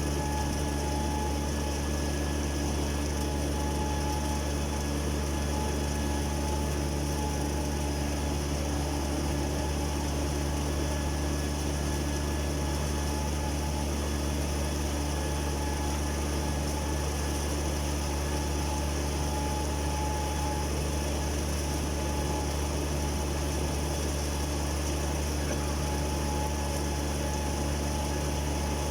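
A steady engine hum: an even, unchanging mechanical drone with a constant hiss above it.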